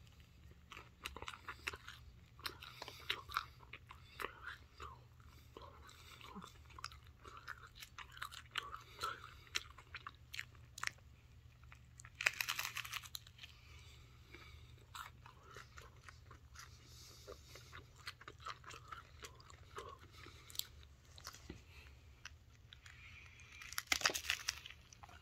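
A person chewing a crisp hard corn taco shell right at the microphone: a steady run of small crackles and crunches, with louder crunching bites about halfway through and again near the end.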